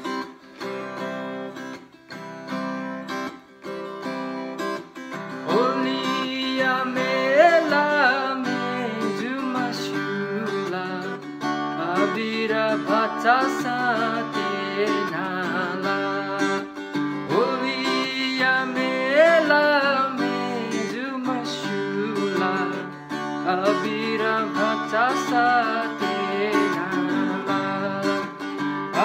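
A Fender guitar strummed in chords, alone for about the first five seconds, then a man singing a Newari Holi festival song in Nepal Bhasa over the strumming.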